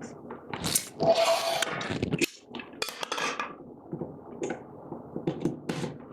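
Clicks, knocks and a rattling clatter of a drip coffee maker being handled, its lid shut and its power cord unplugged. The longest clatter comes about a second in, followed by scattered small clicks.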